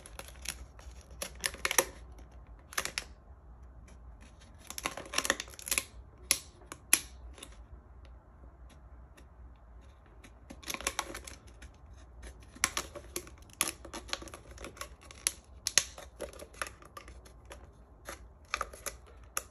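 Thin plastic of a 16.9-ounce Deer Park water bottle being cut with a blade: irregular clusters of sharp crackles and clicks, with short pauses between cuts.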